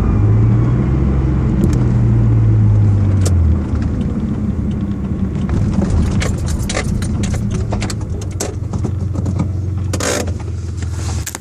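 Mitsubishi 3000GT's V6 engine running, with a strong steady hum that drops away about three and a half seconds in. Light clicks and rattles follow, with a louder rustling burst near the end.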